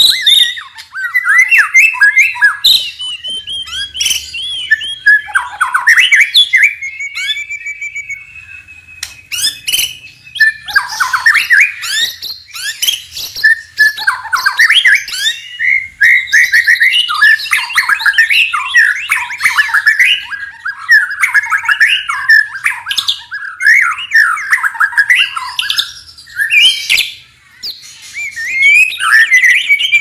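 White-rumped shama (murai batu) singing loudly and without pause: a rapid run of varied whistled, chattering and harsh phrases, with a short lull around eight seconds in.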